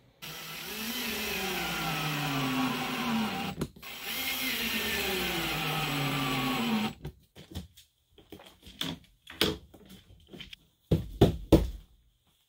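DeWalt cordless drill/driver running twice for about three seconds each, driving aluminium white-head screws through the Coroplast hull into the wood frame; the motor's whine drops in pitch as each screw draws in. After that come scattered clicks and knocks, the loudest a few thumps about eleven seconds in.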